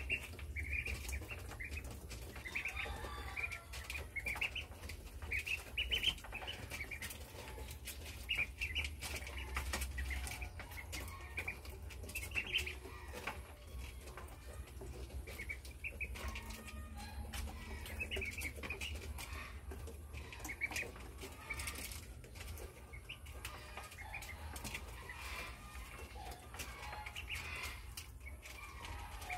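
A brood of ducklings peeping in short, high, repeated chirps, with many small sharp clicks as they peck grain from a plastic feeder tray.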